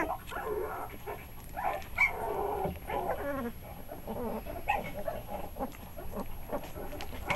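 A litter of three-week-old pit bull puppies crying, with many short, overlapping calls as they crawl and tussle over one another.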